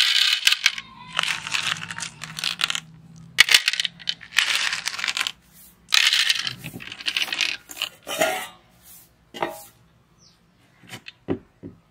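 Small round chocolate balls dropped by the handful into an empty plastic blender jar, clattering and rattling against the plastic in several bursts. A few single balls click in near the end.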